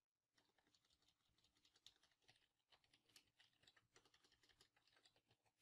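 Faint computer keyboard typing: a continuous run of quick keystroke clicks.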